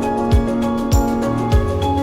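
Background music with a steady beat: a deep drum hit about every 0.6 seconds under held melodic tones.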